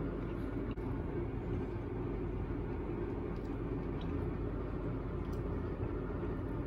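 Steady low rumble of a running motor, even in level throughout, with a few faint ticks.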